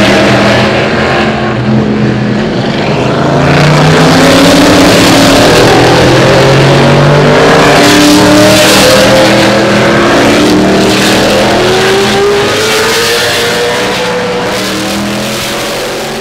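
Several vintage Trans-Am racing cars with small-block V8 engines running hard through a corner one after another. Their engine notes overlap and rise in pitch as they accelerate, then fade near the end.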